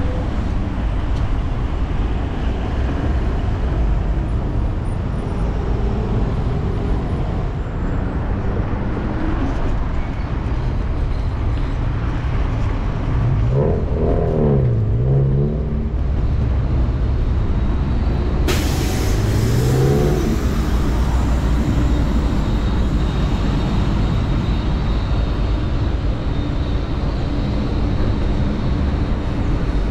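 Road traffic passing close by, under a steady low rumble of wind on a bike-mounted action camera's microphone. A passing vehicle's engine revs up and down about halfway through and again a few seconds later, and a sudden hiss starts just past the middle.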